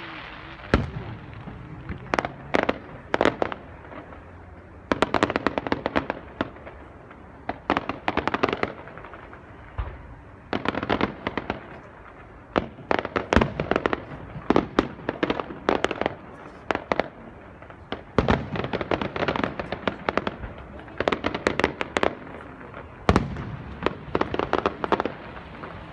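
Aerial fireworks display: shells bursting in a near-continuous run of sharp bangs and crackling clusters, a second or two apart, with a few deeper booms among them.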